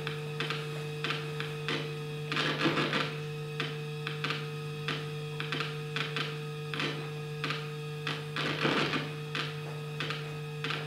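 Experimental electroacoustic music for prepared zither, clarinet and electronics: a steady low drone under scattered clicks and crackles, with denser crackling clusters about two and a half seconds in and again later on.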